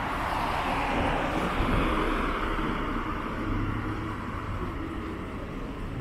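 A vehicle passing on the street: road noise that swells over the first two seconds and then slowly fades.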